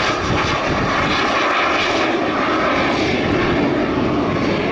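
Airplane engine noise, loud and steady, as the aircraft flies past low overhead.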